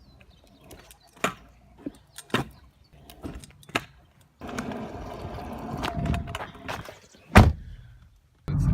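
A series of separate sharp knocks and clicks, then a stretch of rumbling noise with one loud thump near the end.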